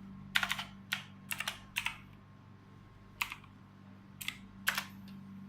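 Imperion Mach 10 RGB mechanical keyboard being typed on: short, irregular bursts of sharp key clicks with pauses between them, over a faint steady low hum.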